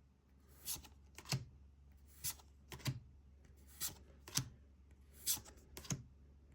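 Pokémon trading cards being flicked through one at a time from a small stack: short papery swishes in pairs, about every second and a half.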